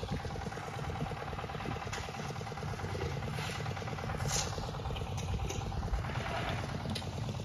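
Engine of earth-moving machinery running steadily: a low rumble with a fast, even chug and a few light clattering ticks.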